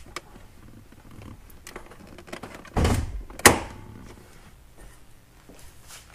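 C6 Corvette hood release worked from the driver's footwell: a dull thunk, then half a second later a sharp, loud click as the hood latch lets go, with faint small clicks around them.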